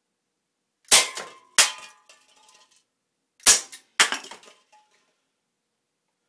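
Crosman 357 .177 CO2 air pistol fired four times, in two quick pairs, each a sharp crack followed by a short metallic rattle with a faint ring.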